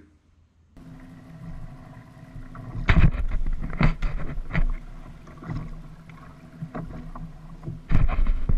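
Water slapping a kayak hull on the open ocean, with wind hitting the action camera's microphone in several sudden loud knocks, over a steady low hum. It starts about a second in.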